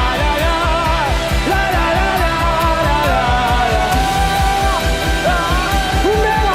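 Live worship band music with a steady beat from the drums under a dense band sound, and a wavering melody line on top.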